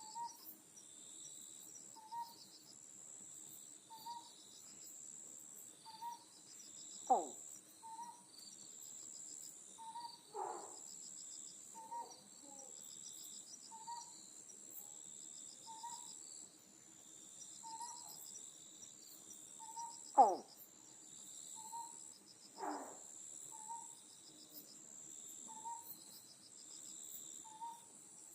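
Otton frog calling: four short, low calls, each falling in pitch. Under them, insects chirr steadily and another faint short note repeats about every two seconds.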